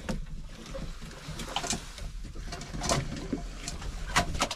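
Scattered clicks, knocks and rustles of hens moving about and pecking on straw-covered wooden boards as a hen is pushed along by hand.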